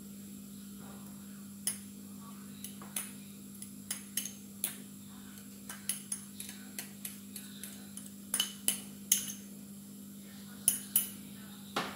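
Irregular light clicks and taps of a utensil against a small ceramic bowl as chopped spring onion is scraped out of it onto the mince, with a cluster of louder taps about eight to nine seconds in. A steady low hum runs underneath.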